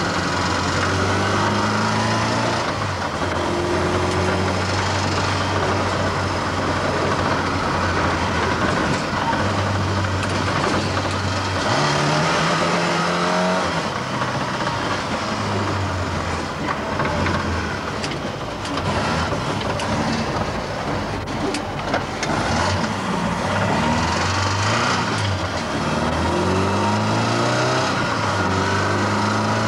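Mk1 Ford Escort RS2000's engine heard from inside the cabin, revs climbing as it pulls up through the gears and dropping back at each change, over steady tyre hiss on a wet road.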